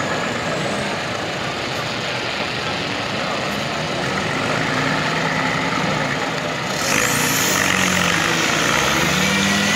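Off-road vehicle engines running in a mud pit as a stuck buggy is pulled out on a tow line; the noise gets louder and hissier about seven seconds in.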